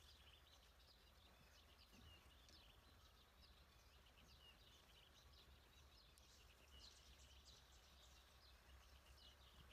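Faint outdoor ambience: small birds chirping, many short quick chirps over a steady low hum.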